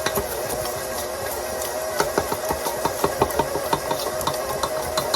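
Electric mixer running steadily as it mixes cookie dough while flour is added, with a run of light clicks and ticks from about two seconds in.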